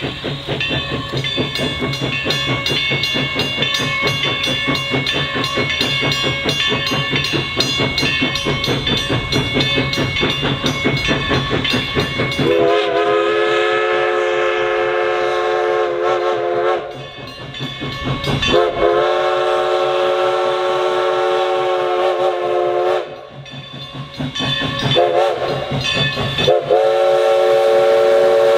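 Everett Railroad No. 11 steam locomotive running toward and past with a fast, even rhythmic beat. About twelve seconds in, its steam whistle sounds two long blasts, a short one, and a long one that is still sounding at the end. That is the standard signal for a grade crossing.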